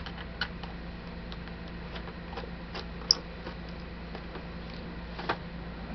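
Faint, scattered small metallic clicks and ticks, with one sharper click about three seconds in, over a steady low hum. These are a small screwdriver and its tiny screws as the bottom-case screws of a 17-inch unibody MacBook Pro are taken out.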